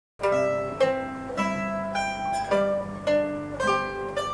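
A mandolin ensemble playing, plucked chords struck at an even pace of a little under two a second.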